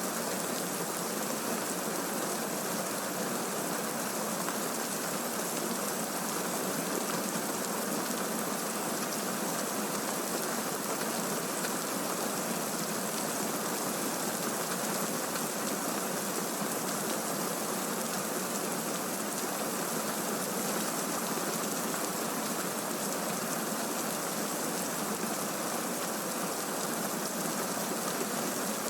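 Steady rain from a recorded thunderstorm ambience, an even hiss that holds the same level throughout.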